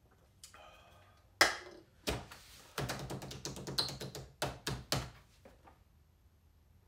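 An aluminium beer can is set down on a hard tabletop with a sharp knock about a second and a half in. Then comes a quick run of taps and knocks on the tabletop that lasts about three seconds.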